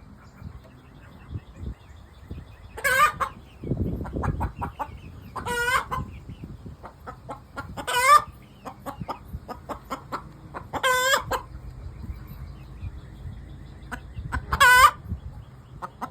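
Easter Egger hen's egg song after laying: runs of short clucks, each ending in a loud, drawn-out squawk, five times about every three seconds.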